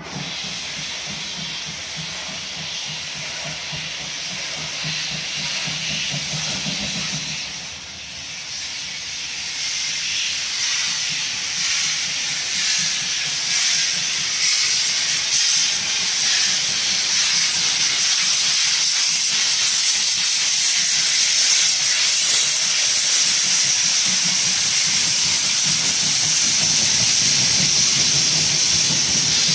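German class 52 steam locomotive 52 4867 hissing loudly as steam blows from its open cylinder drain cocks while it moves past. The hiss grows steadily louder from about eight seconds in as the engine draws near.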